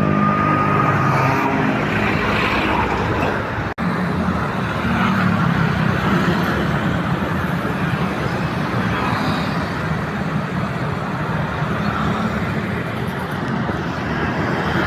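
Roadside traffic: engines and tyres of passing vehicles running steadily, broken by one brief dropout about four seconds in.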